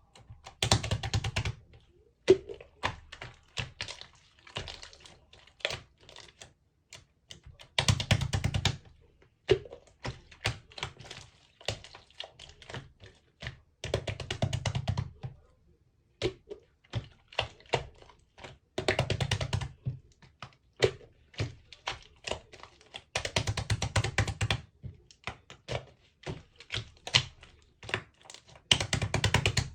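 Clear slime being pressed and folded by hand, crackling with bursts of popping air bubbles about every five seconds and scattered single clicks in between.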